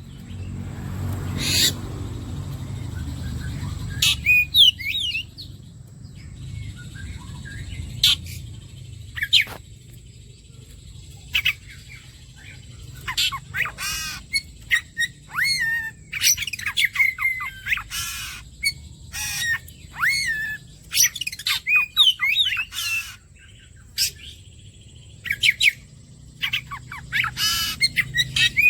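Oriental magpie-robin (kacer) singing: a fast, varied string of short whistles, chirps and trills, with a low rumble underneath for the first few seconds.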